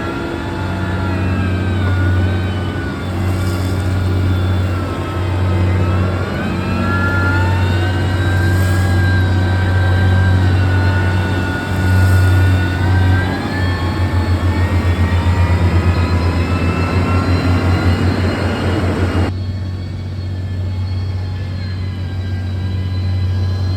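Heavy earthmoving machine's diesel engine running under varying load, its pitch rising and falling, with a rapid pulsing throb for several seconds before the sound changes abruptly near the end.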